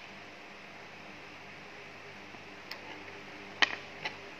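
Small plastic linking cubes clicking as they are set down on a paper ten-frame. There are three short clicks, the loudest about three and a half seconds in, over a faint steady hiss.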